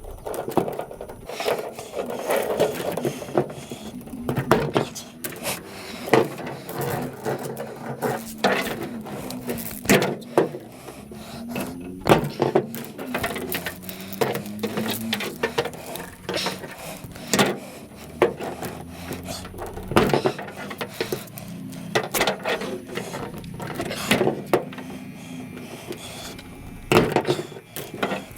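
Scrap metal being handled and taken apart by hand: irregular knocks, clanks and rattles, several a second at times.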